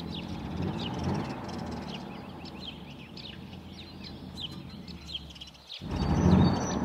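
Birds chirping, short quick calls again and again, over a low steady rumble of ambience. About six seconds in the bed cuts off suddenly and a rising whoosh swells up.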